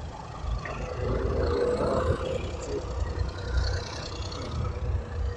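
Low, steady rumble of an abra water taxi's diesel engine running at the dock, with some indistinct bustle in the middle.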